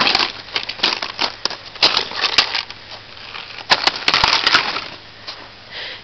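Thin river ice cracking and crunching under a person's boot: a series of sharp crackles in several clusters with short pauses between. The ice is too weak to bear a person's weight.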